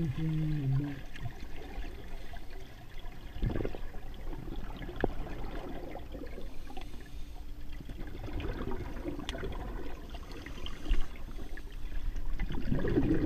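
Muffled underwater pool sound from a submerged camera: scuba regulator bubbles gurgling and trickling, with scattered small clicks and knocks. A brief wavering muffled tone in the first second, and louder sloshing near the end.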